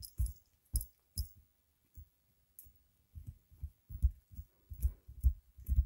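A series of soft, low thumps: three spaced ones with faint clicks in the first second or so, then, after a pause, thumps coming closer together over the last three seconds.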